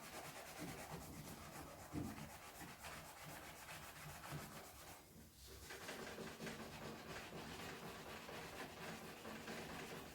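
A kitchen sponge scrubbing a brass door handle with warm soapy water: faint, steady rubbing strokes, with a brief pause a little past halfway.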